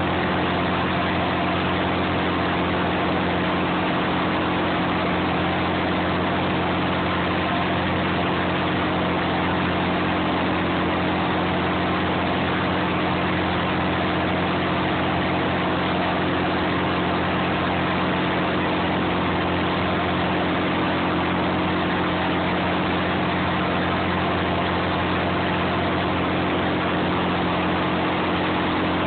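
Clam boat's engine running steadily: an unchanging low hum with a constant rushing noise over it.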